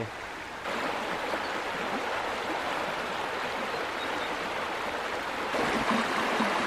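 Shallow creek water running steadily over stones, a continuous rushing noise that gets a little louder under a second in and again near the end.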